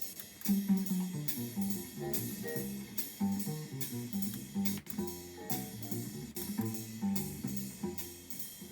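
Instrumental music with bass notes and drum hits played back through a Denon PMA-925R stereo amplifier and its loudspeakers; the sound plays on without a dropout.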